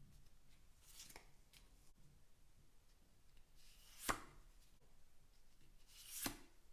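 Trading cards being handled and set down: a few short, sharp taps on a surface over near silence, about a second in, about four seconds in (the loudest, just after a short slide) and about six seconds in.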